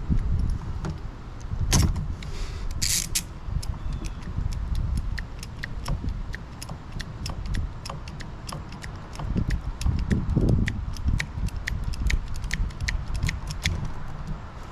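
Ratcheting cable cutter clicking about three times a second as its jaws are ratcheted through a stranded overhead service drop conductor, with a couple of louder metallic clatters about two and three seconds in.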